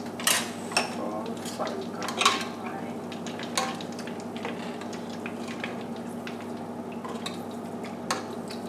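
Chicken wings deep-frying in a stainless steel pot of oil with a steady sizzle, while a utensil clinks and scrapes against the pot several times, loudest near the start and about two seconds in. A steady low hum runs underneath.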